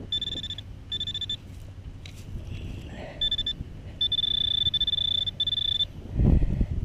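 Handheld metal-detecting pinpointer probing a dig hole, giving a high, steady buzzing alert that switches on and off in short stretches as its tip nears metal. The alert means the buried target is close to the tip. Near the end there is a short low scraping rumble, louder than the alert.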